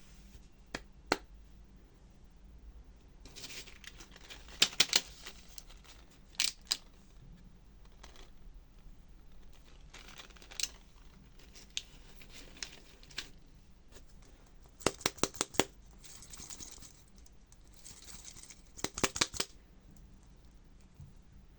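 Surprise egg being unwrapped and handled: wrapper crinkling and tearing in short bursts, with scattered sharp clicks and taps.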